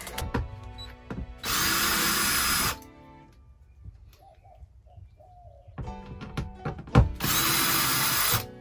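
DeWalt cordless drill/driver run in two short steady bursts of about a second each, held up against the ceiling panel, with a few light knocks in between.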